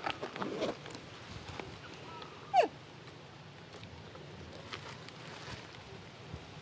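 One short, loud animal call about two and a half seconds in that sweeps sharply upward in pitch, after a few quick crackles and rustles in the first second.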